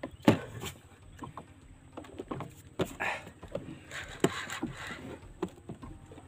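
Irregular clicks and knocks from a fishing rod and reel being worked against a hooked stingray, the loudest a sharp knock just after the start, with a few short rasping bursts in the middle.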